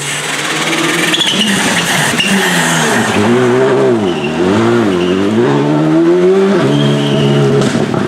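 Rally car engine working hard through a corner: the engine note drops under braking about four seconds in, then swoops up and down with the gear changes as it accelerates away.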